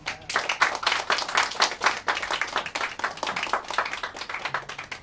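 Small audience applauding, many hands clapping together, easing off near the end.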